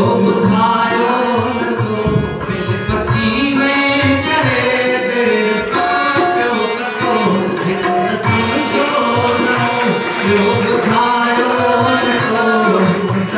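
A man singing into a microphone, accompanied by a harmonium and a dholak barrel drum played by hand.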